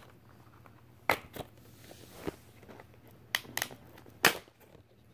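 Plastic Blu-ray case being handled and opened: a series of about six sharp clicks and snaps, the loudest about a second in and again just past four seconds.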